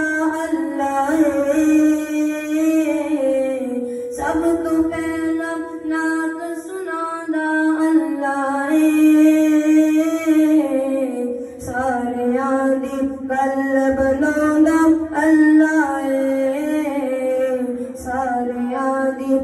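A boy's voice singing a Punjabi naat solo, without instruments, in a gliding, ornamented melody with one long held note about four seconds in.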